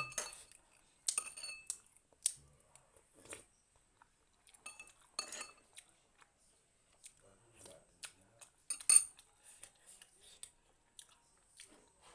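Utensils clinking against dishes in scattered short clicks, with chewing and eating sounds between them; the sharpest clink comes about nine seconds in.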